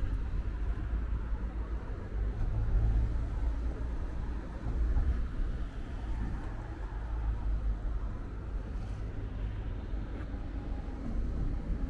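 Steady low rumble of road traffic on the bridge, rising and falling as vehicles pass.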